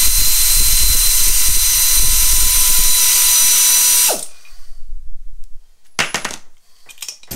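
Pneumatic air ratchet running steadily with a hiss of exhaust air, spinning out a motorcycle's rear wheel bolts; about four seconds in it winds down and stops. A few short clatters follow as the wheel is lifted off the hub.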